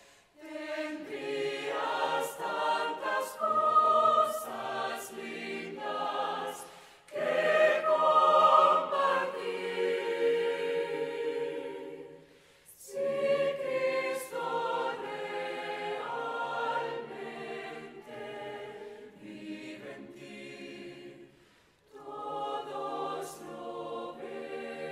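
Mixed choir of men's and women's voices singing, in phrases broken by short pauses.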